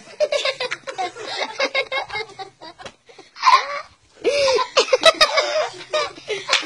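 People laughing hard in choppy, repeated bursts, with brief pauses.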